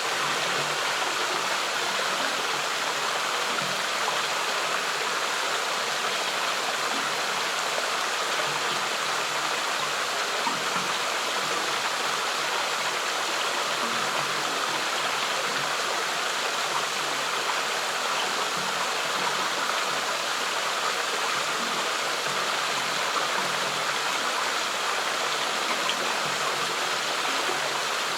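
Stream water flowing steadily, an even rushing with no breaks.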